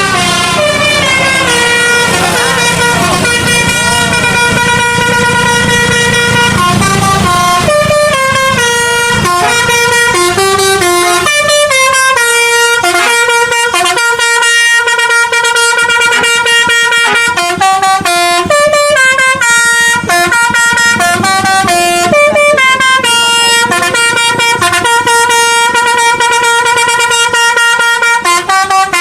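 Indonesian bus 'telolet' multi-tone air horn (Basuri type) playing quick stepping tunes, the notes changing several times a second. A low rumble runs underneath for about the first seven seconds.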